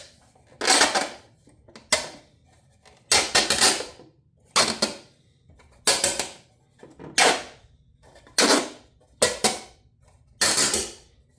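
3D-printed plastic parts scraping in about nine short strokes, roughly a second apart, as a tight-fitting printed border piece is forced along the shelf's printed uprights.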